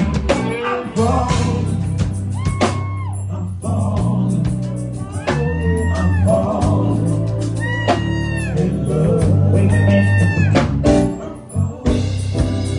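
Live band playing a southern soul / blues groove: steady bass, drums, and a lead line whose notes bend up and down.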